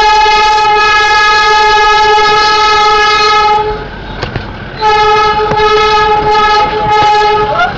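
Darjeeling Himalayan Railway diesel locomotive's horn sounding two long steady blasts, each about three and a half seconds, about a second apart, while the train reverses into the station. Faint clicks of the wheels on the track come in the gap.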